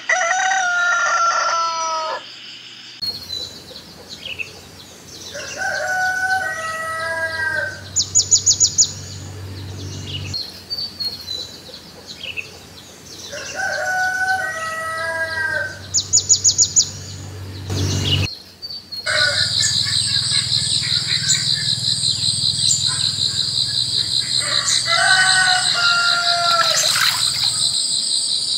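A rooster crowing four times, each crow about two seconds long. Brief fast high bird trills come between the crows. From about two-thirds of the way in, a steady high-pitched insect chorus sets in and carries on under the last crow.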